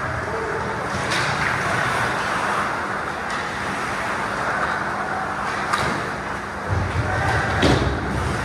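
Ice hockey play: a steady hiss of skates on the ice, growing louder near the end as players reach the net close by, with a few sharp clacks of sticks and puck.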